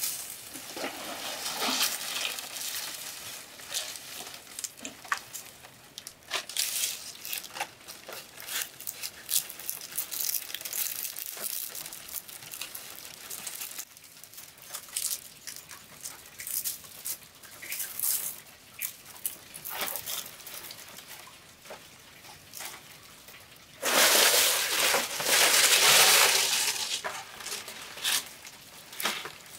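Dry leaf thatch rustling and crackling as bundles are handled and laid onto a wooden roof frame, with scattered small clicks. A louder, denser rustling lasts a few seconds near the end.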